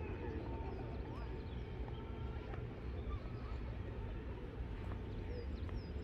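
Outdoor park ambience: a steady low rumble with a few faint, short high bird chirps.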